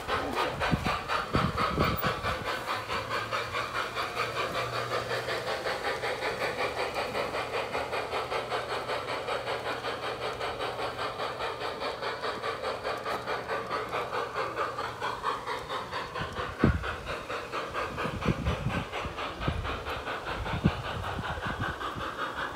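G-scale garden model train running on its track, a steady hissy rhythm of about four beats a second, with a low hum through most of it. A few sharp clicks near the end.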